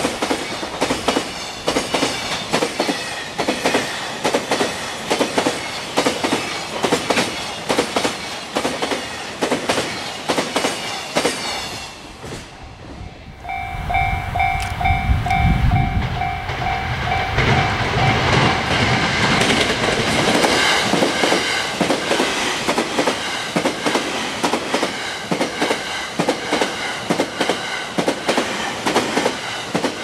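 A freight train's wheels clack in a rapid, even rhythm over jointed rail. After a cut, a railway crossing's warning bell rings in steady pulses over the rumble of an approaching train. Then the wheels of the Sunrise Seto/Izumo sleeper express clack over the rail joints as it passes.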